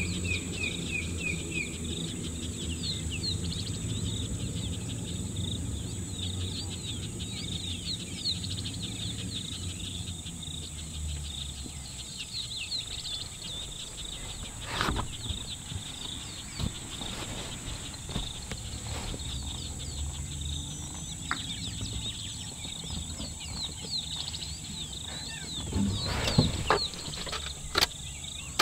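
Many small birds chirping and twittering without a break over a steady high insect drone. A low vehicle-engine hum sits underneath and fades away after about eleven seconds. A few sharp knocks come later, loudest near the end.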